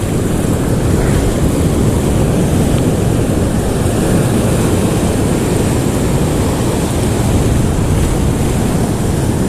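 Steady rushing of wind on the microphone over the wash of sea surf.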